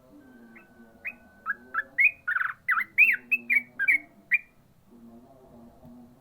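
Yellow-vented bulbul (trucukan) singing: a quick run of about a dozen loud, clear, chattering notes lasting about four seconds, starting about half a second in.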